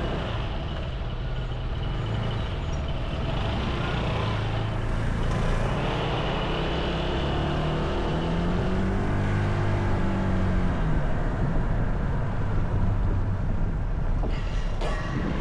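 Honda ADV160 scooter's single-cylinder engine running at low speed, heard from a camera mounted on the scooter, over road and wind noise. The engine note climbs and then eases off about midway, and there are a couple of knocks near the end.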